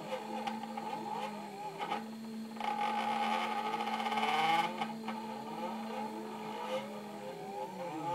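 Stepper motors of a DIY CNC laser cutter driving the laser head through a cut: whining tones that glide up and down with each acceleration and slowdown, over a steady hum. From about two and a half to four and a half seconds in, the sound gets louder and hissier.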